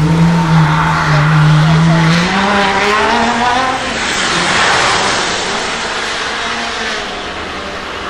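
A supercar accelerating past on a wet track. Its pitched whine holds steady for about two seconds, then rises as it speeds up. Tyres hiss through standing water as it passes about four to five seconds in, and the sound fades as it goes away.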